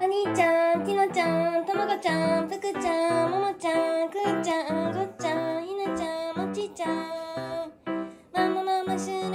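Domestic cats meowing repeatedly for their food, one with an injured throat, over background music with piano.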